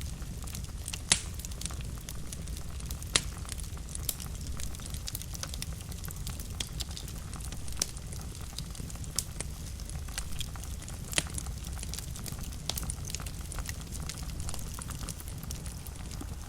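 Wood fire crackling in a fireplace: a steady low rumble of flames under frequent small snaps and pops, with a few sharper, louder pops scattered through.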